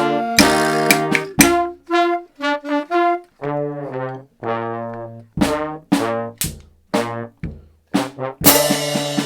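Beginner band music led by brass, trombone-like in tone: a line of separate, detached notes with short rests between them, some clipped short and some held about half a second.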